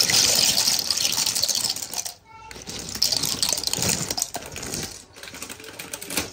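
Dry shell pasta poured from its bag into a pan of water: a rattling, splashing pour of many small clicks, breaking off briefly about two seconds in, resuming, and tailing off after about five seconds.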